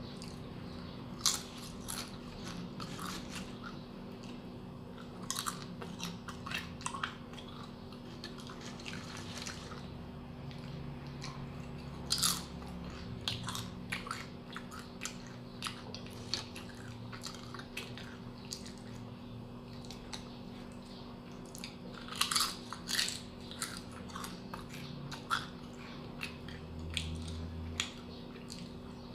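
Crisp fried banana chips being bitten and chewed close to the microphone: irregular sharp crunches, some in quick clusters, with quieter chewing between them.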